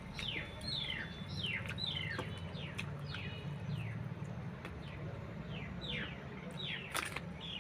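A bird chirping repeatedly: a dozen or so short, falling chirps, over a steady low hum, with a sharp click near the end.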